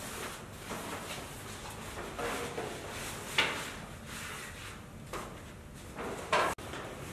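Room ambience with scattered short knocks and clatters, a sharp one about three seconds in and a louder one near the end that cuts off suddenly.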